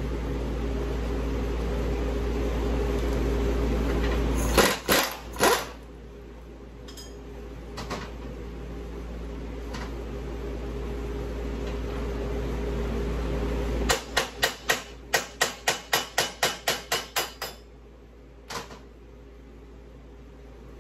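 Hammer blows on the steel shaft of a mower deck spindle assembly, driving the shaft out of its bearing housing: three hard strikes about five seconds in, then a quick run of about a dozen blows at roughly four a second, and a single last strike near the end.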